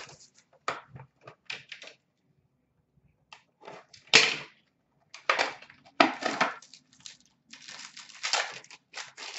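Hands opening a small trading-card box and its wrapped pack: short bursts of crinkling wrapper and rustling cardboard, with a brief pause about two seconds in and the loudest rustle about four seconds in.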